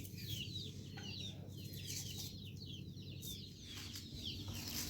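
Many chicks peeping: a dense, continuous chorus of short, high calls that each fall in pitch, over a steady low rumble.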